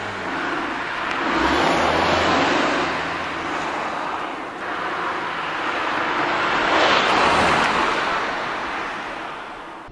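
Car passing close by on a road, tyre and engine noise swelling and fading. There are two passes, loudest about two seconds in and again about seven seconds in.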